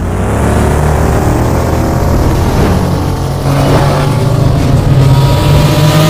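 Sound-effect engine rumble of a futuristic motorbike, loud and steady, with a faint whine above the low drone.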